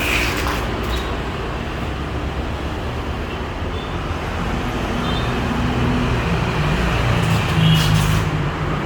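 Road traffic with a motor vehicle engine running, a low engine note that swells about six seconds in.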